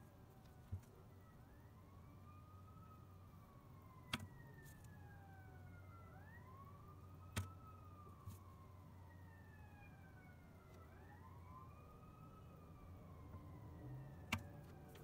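Faint siren wailing, its pitch rising and falling about every four to five seconds, over quiet room tone. Five light clicks come as a hook and a soft-plastic lure are handled.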